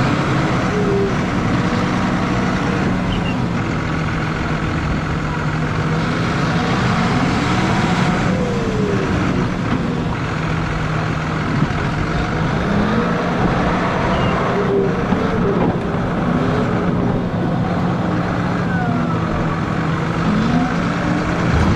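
John Deere 6155R tractor's six-cylinder diesel running steadily under load while it pushes snow with a front plow blade. A few short chirps come and go over the engine note.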